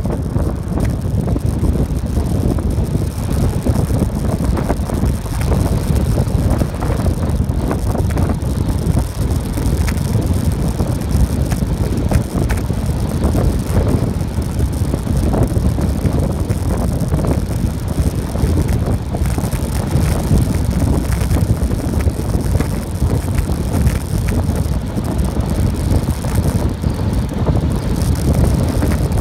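Strong wind buffeting the microphone during a fast downhill run, with a steady low rumble of wheels rolling on asphalt.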